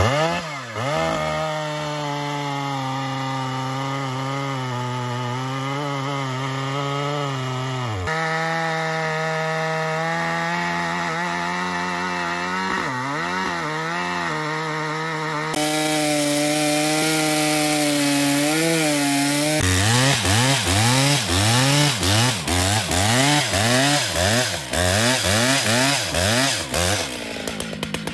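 Stihl MS 881, a 121 cc two-stroke chainsaw with a 41-inch bar, cutting through a large log at full throttle, its engine note dipping under load as the chain bites. In the later part the engine speed rises and falls about twice a second, and it drops back near the end as the cut finishes.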